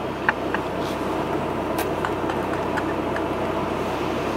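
Car engine running, heard from inside the cabin as a steady low hum, with a few faint clicks.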